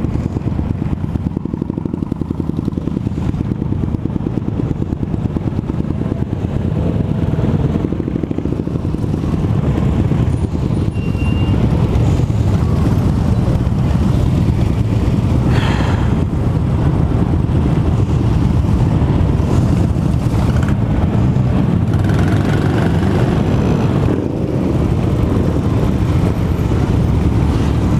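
Many motorcycle engines running together in a slow-moving pack close behind, mixed with the engine of the Vespa scooter carrying the microphone: a steady rough rumble that grows louder about twelve seconds in.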